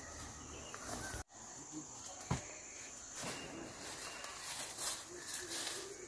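Steady high insect drone, typical of crickets, under scattered rustles and short clicks. The sound cuts out briefly just after a second in.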